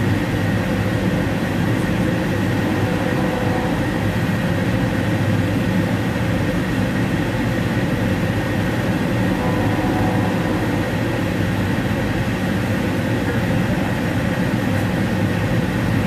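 Steady rumble of a moving Amtrak passenger train heard from inside its Superdome lounge car: wheels on rail and the car's running noise, with a steady low hum.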